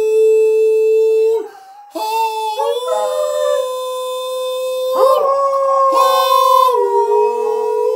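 A dog and people howling together in long, drawn-out held notes. The howling breaks off briefly about a second and a half in, then starts again, and swells louder about five seconds in.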